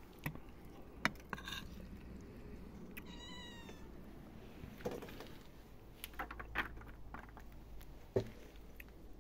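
A kitten gives one short meow about three seconds in, its pitch rising and falling. Around it come a few sharp clinks and knocks of a metal spoon and fork against a steel pot as food is served out.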